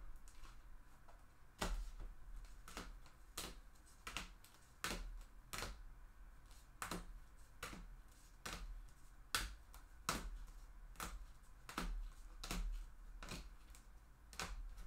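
Irregular sharp clicks and taps of small hard objects, one or two a second, the loudest about nine seconds in.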